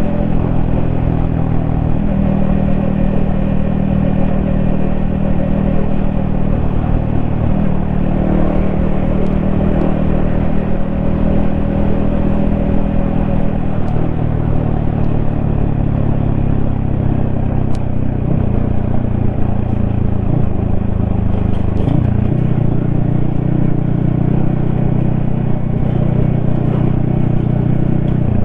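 Yamaha XSR155's single-cylinder four-stroke engine running under way on the road, heard from the rider's helmet; the note holds steady, then shifts up and down a few times in the second half.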